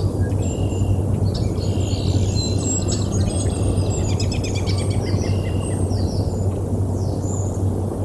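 Wild birds chirping, whistling and trilling, with a fast trill of rapid repeated notes near the middle. Under them runs a steady low rumble.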